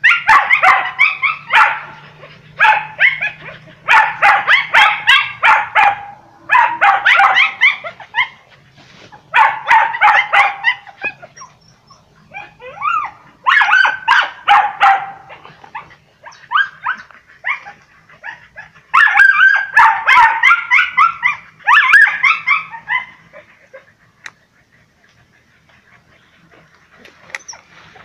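Hunting dogs yelping and barking in repeated bursts of rapid, high-pitched calls while they chase a wild cat. The bursts break off a few seconds before the end.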